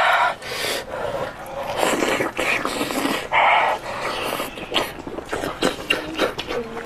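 Close-miked eating sounds: wet slurping, sucking and chewing on sauce-covered meat, with a few loud short slurps and small wet clicks in between.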